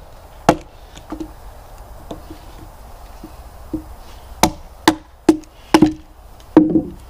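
A hammer striking the back of a hatchet set into a piece of cedar, splitting it apart: about ten sharp knocks, a few spread out at first, then quicker and heavier from about halfway on, the loudest near the end.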